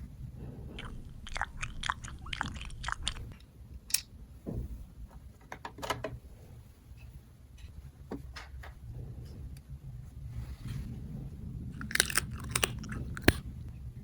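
Small plastic toy parts being handled and fitted: clusters of quick sharp clicks and crinkles, with scattered single clicks between.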